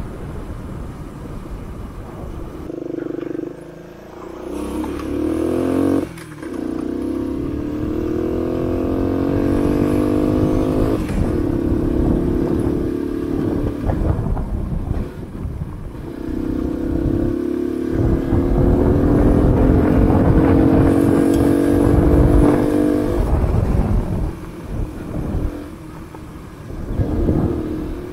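Honda C90 single-cylinder four-stroke engine in a Honda Dax, heard from the bike while riding. The engine note climbs in pitch over several long pulls, each breaking off and starting again lower, with a low rumble underneath.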